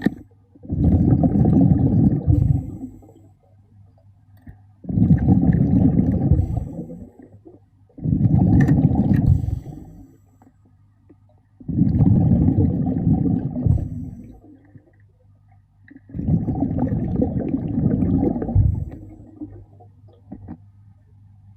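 A diver's exhaled air bubbling out of the breathing regulator underwater, in five rumbling bursts of about two seconds each at a steady breathing rhythm.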